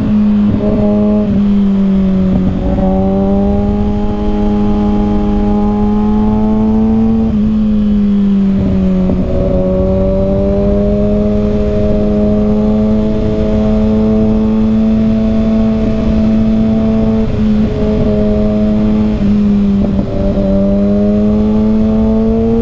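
2021 Kawasaki ZX-6R's 636 cc inline-four running at steady high revs through an M4 Carbon Street Slayer slip-on exhaust, its note easing down and climbing back a couple of times, with wind buffeting the microphone.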